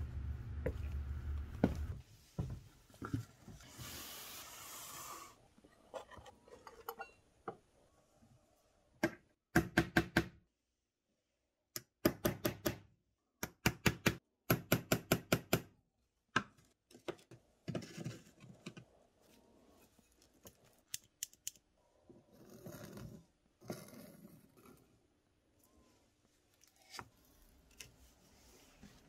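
Small hammer tapping lightly and rapidly on metal, in several quick runs of strikes at about ten a second, with short pauses between runs.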